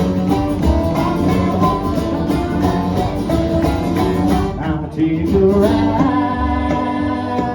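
Acoustic country band playing an instrumental passage, with guitar to the fore.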